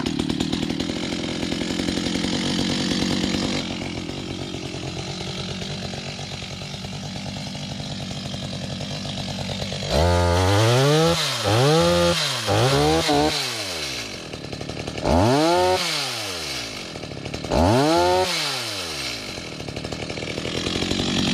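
Two-stroke chainsaw running at idle, then revved up and let back down five times from about ten seconds in, while it is tested after a repair to its damaged chain.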